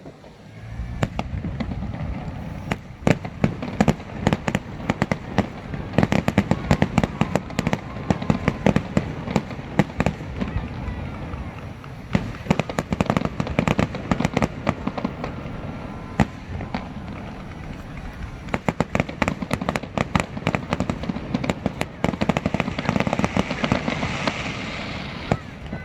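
Aerial fireworks going off: a dense run of sharp bangs and crackling pops over a low rumble, starting about a second in, with a crackling hiss near the end.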